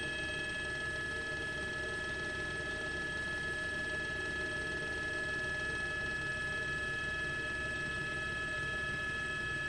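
Steady mechanical noise of a news helicopter heard from inside the aircraft: several constant high-pitched whines from the turbine and gearbox over a low rotor rumble.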